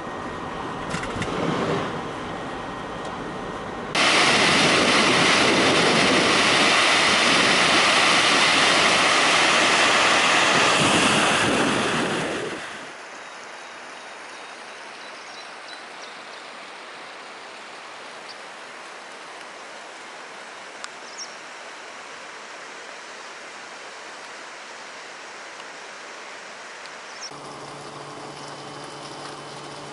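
Road noise from a car driving on a wet road. At about 4 s a loud, steady rushing noise cuts in, lasts about nine seconds and stops abruptly. A much quieter steady rush with a few faint ticks follows.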